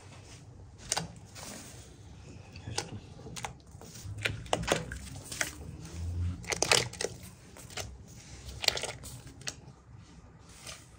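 Hand-held kitchen work while preparing food: irregular clicks and knocks of utensils and containers, with a few longer scraping or rustling sounds, the loudest a little past the middle.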